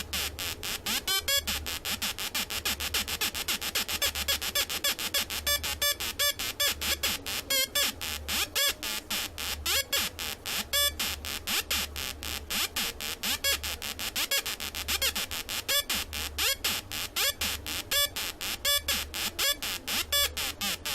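Atari Punk Console-style 555-timer sound-effect circuit sounding through its transistor output: a harsh, rapidly pulsing electronic buzz. Its pitch is stepped and modulated by the circuit's low-frequency oscillator, giving a repeating, stuttering rhythm.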